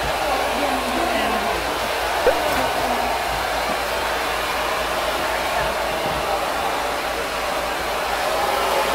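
Hair dryer running steadily, a loud, even blowing noise.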